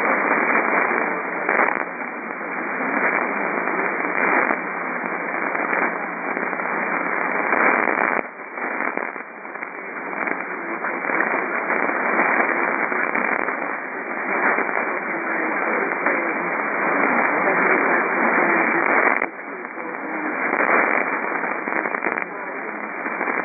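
Loud radio static: a dense hiss squeezed into a narrow band, as from a receiver on a weak or empty channel. It wavers in strength and drops sharply for a moment about 8 seconds in and again about 19 seconds in.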